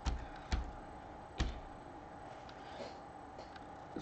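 A few scattered keystrokes on a computer keyboard as a chip name is typed in: three sharper clicks in the first second and a half, then fainter taps.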